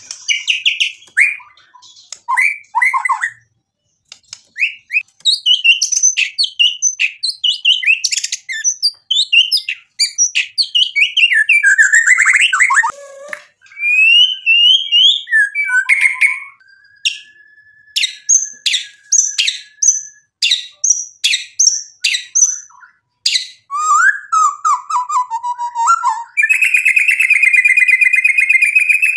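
White-rumped shama (murai batu) singing a varied, loud song of fast whistled sweeps and chirps. About halfway through it holds one long steady whistle among sharp clicks, and in the last few seconds it breaks into a rapid, unbroken buzzy trill.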